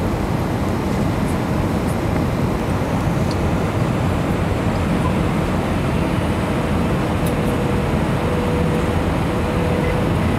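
Steady engine and airflow noise of an easyJet Airbus airliner on its approach to land, with a faint steady whine joining about six seconds in.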